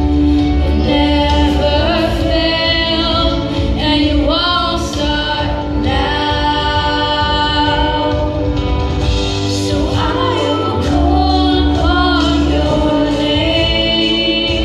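Contemporary worship song playing: sung vocals holding long, wavering notes over a steady deep bass accompaniment.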